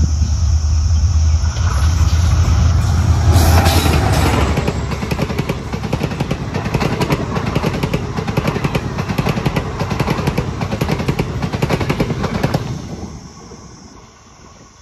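Indian Railways WDP4 diesel locomotive passing at speed with a passenger train. The low drone of its two-stroke diesel engine is loudest as it goes by about four seconds in. Then the coach wheels clatter rapidly over the rails until the sound drops away near the end as the train recedes.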